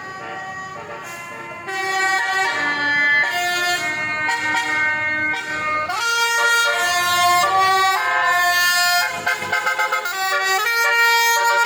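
Basuri musical air horn on a bus or truck playing a tune, several horn notes sounding together and stepping from pitch to pitch. It gets louder about two seconds in.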